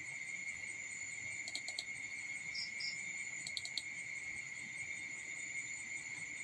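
Steady high-pitched trilling of night insects, with two short runs of three or four sharp clicks about a second and a half and three and a half seconds in.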